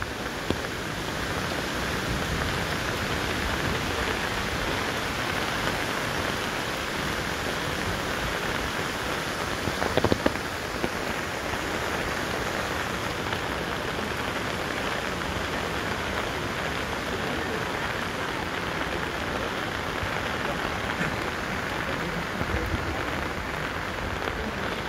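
Steady rain falling on a wet road, a constant even hiss, with a short cluster of sharp knocks about ten seconds in.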